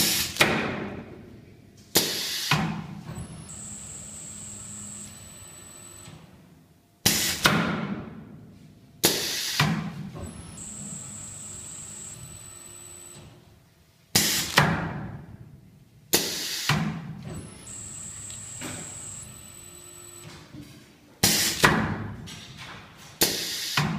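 Croquant (peanut brittle) cutting machine running through its cycle: two sharp, loud strokes of the cutting blade about two seconds apart, each dying away over a second or so, repeating roughly every seven seconds. A steady low hum and a faint high whine run between the strokes.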